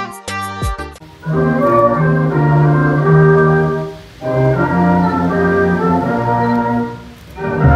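Organ-like electronic keyboard playing sustained chords in slow, held phrases, with brief breaks about three and six seconds in; the tail of a short choppy electronic jingle ends in the first second.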